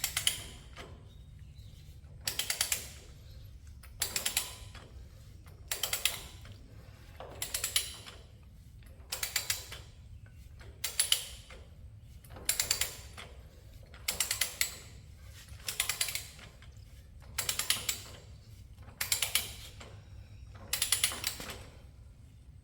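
A ratcheting torque wrench, set to 250 lb, is being worked to tighten a bolt. Its pawl gives a short burst of rapid clicks on each return stroke, about thirteen strokes evenly spaced about a second and a half apart.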